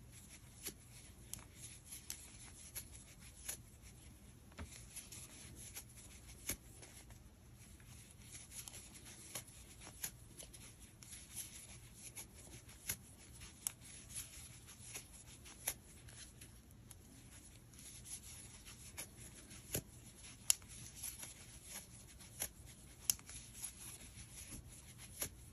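Faint, irregular small clicks and soft rubbing of a crochet hook working yarn, as double crochet stitches are made into a magic ring.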